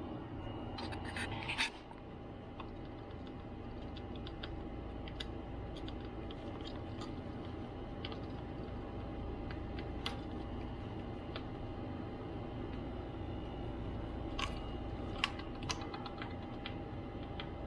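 Scattered small metallic clicks and scrapes of a precision screwdriver working the tiny keyboard screws out of a MacBook Pro A1278. A short cluster comes about a second in and a few more near the end, over a steady hum.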